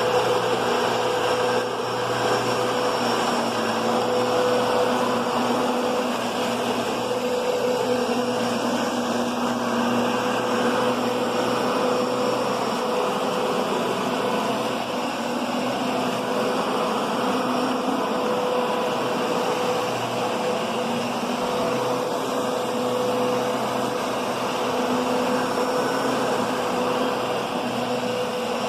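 Kenmore Progressive canister vacuum running steadily over carpet, with a steady motor hum and the power nozzle's brush roll working the pile. Its tone is soft rather than a high whine.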